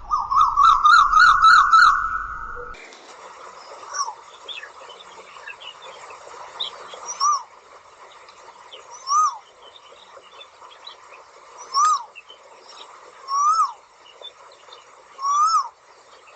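Asian koel calling. A fast string of rising-and-falling whistled notes runs for about two and a half seconds and stops abruptly. Then comes a series of single whistled notes, each rising then dropping, about every two seconds, with faint chirps of other small birds behind them.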